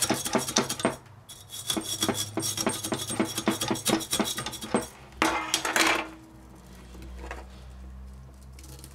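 Hand hacksaw cutting through the copper windings of a small electric motor clamped in a vise, in quick back-and-forth strokes with a short break about a second in; the sawing stops about five seconds in with a brief louder scrape, followed by quieter handling of the cut copper wire.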